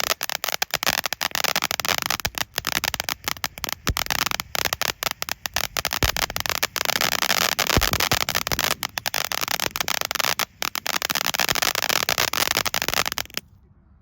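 Hulk ground-fountain firework burning with a dense crackling effect: a rapid stream of sharp pops over a steady hiss. It stops suddenly near the end.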